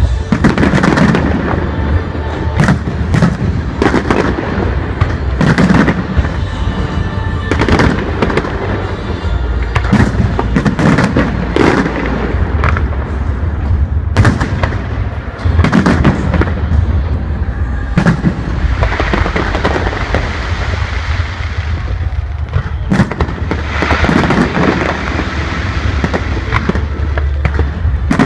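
Fireworks display: aerial shells bursting overhead, bang after bang, often less than a second apart, over a constant low rumble.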